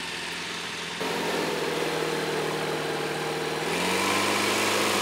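Homebuilt high-wing light aircraft's piston engine and propeller running steadily at low power while taxiing on grass; the engine note rises slightly about four seconds in.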